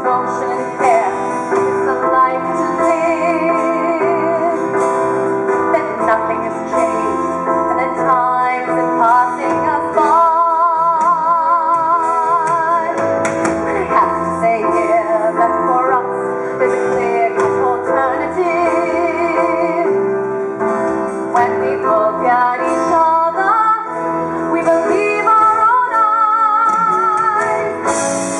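A musical-theatre number sung live on stage: a woman's voice singing long notes with a wide vibrato, with other voices, over band accompaniment.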